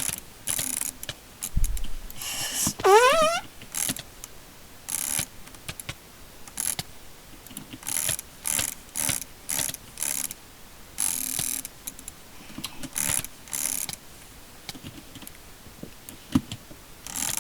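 Roccat Kain gaming mouse buttons clicking in quick bursts, about a dozen short clusters of rapid clicks. About three seconds in comes a brief rising whistle-like sweep.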